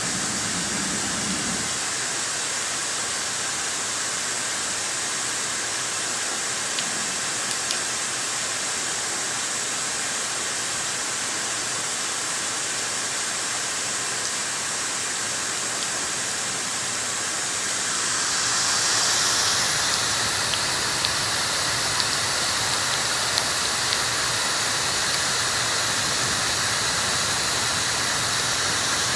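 Dyson hair dryer blowing steadily, a rush of air with a thin high whine. About eighteen seconds in the air noise gets louder and more hissing, with a few faint ticks after.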